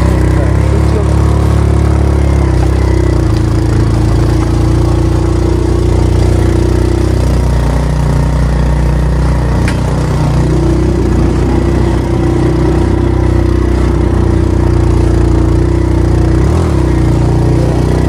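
An engine running steadily, its pitch shifting a little about three seconds in and again about ten seconds in.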